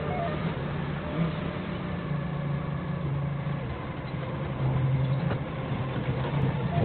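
Doosan 4.5-ton forklift's engine running as the truck drives and manoeuvres. The engine note drops and grows louder for about a second around two-thirds of the way through.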